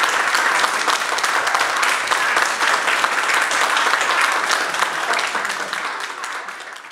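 Audience and performers applauding, many hands clapping at once, dying away near the end.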